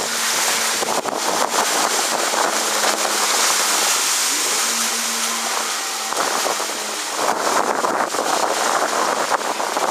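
Yamaha WaveVenture 700 personal watercraft's two-stroke engine droning steadily across the water as it carves turns and throws spray. The engine note rises briefly about halfway. Heavy wind noise on the microphone sits over it.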